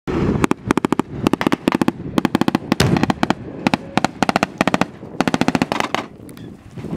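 Repeated short bursts of rapid sharp bangs, several cracks to each burst, from battle-simulation charges and blank fire in a staged ambush on a military truck. The bursts die down near the end.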